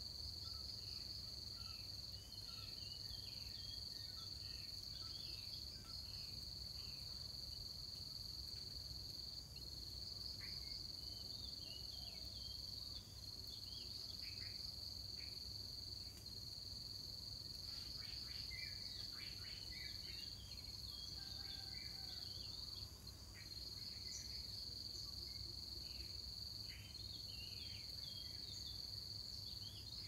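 A steady high-pitched insect drone with a faint pulse, like crickets, with short chirping bird calls scattered over it, thickest in the middle.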